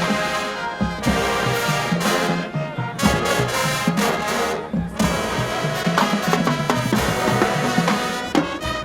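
Marching band playing loud brass chords over drums, with short breaks between phrases.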